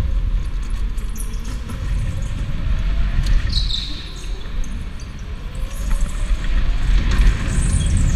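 Electric go-kart driven at speed, heard from on board: a heavy low rumble with rattles and knocks from the chassis over the concrete, and the electric motor's faint whine gliding up and down in pitch. A short high tyre squeal comes about three and a half seconds in as the kart corners, with more squealing near the end.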